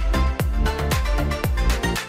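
Upbeat electronic dance music with a steady kick drum, about two beats a second, over busy hi-hats and held synth chords.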